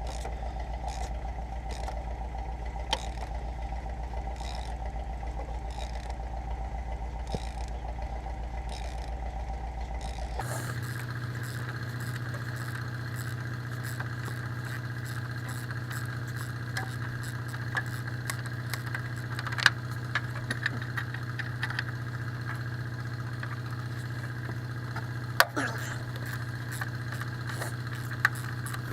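An engine idling steadily, with scattered light metallic clinks of hand tools. About ten seconds in, the hum changes abruptly to a higher steady pitch.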